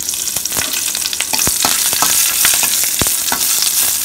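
Green chillies sizzling in hot oil in a stainless steel pan as they are stirred, with crackling throughout and a few sharp clicks against the pan, the loudest about a second and a half and three seconds in.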